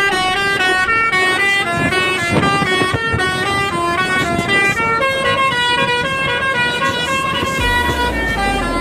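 Basuri telolet horn on an NPM bus playing a fast melody, its notes stepping up and down several times a second. A low rumble comes in near the end.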